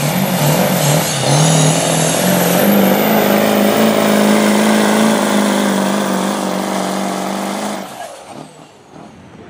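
Diesel engine of a Ford Super Duty pickup at full throttle, pulling a weight-transfer sled in a workstock-class truck pull. A loud, steady high-rpm drone steps up slightly in pitch about a second in, then falls away sharply near the end as the pull ends.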